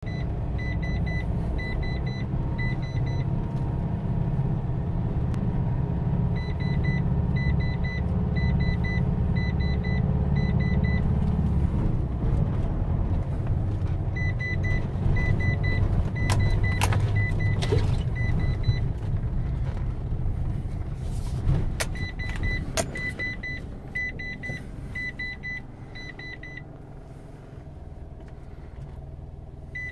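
Car cabin while driving slowly over a rough sandy forest track: a steady low rumble of engine and tyres that eases toward the end. Runs of short, high electronic beeps repeat at an even pace, and a few sharp knocks come in the middle.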